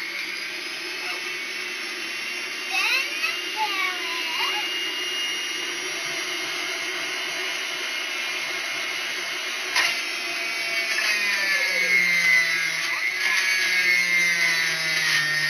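Small electric motor of a kitchen appliance running steadily. About eleven seconds in it gets a little louder and its pitch dips slightly.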